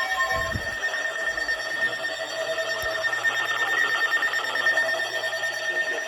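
Emergency Alert System alert tones: steady electronic tones with a fast, chattering warble over them.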